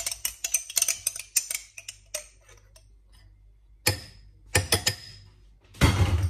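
Metal spoons clinking and scraping against a glass mixing bowl as chilli-garlic paste is knocked off into marinated chicken. A quick run of small clinks comes in the first two seconds, then a few taps around four to five seconds, and a louder scraping clatter near the end.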